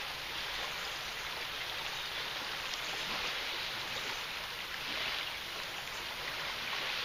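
Fast, shallow river water rushing steadily over a riffle.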